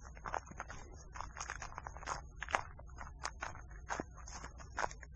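Footsteps crunching on a snow-dusted, frozen dirt trail at a walking pace, with several short, crisp crunches each second over a low steady rumble.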